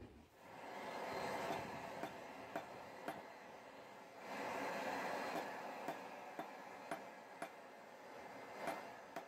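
Hammer blows on a steel rod at the anvil while forging a leaf, sharp metallic strikes at about two a second. A steady rushing noise runs underneath, swelling and easing twice.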